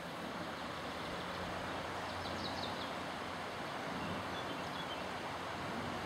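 Steady rush of river water flowing, with faint bird chirps about two and a half seconds in and again near the end.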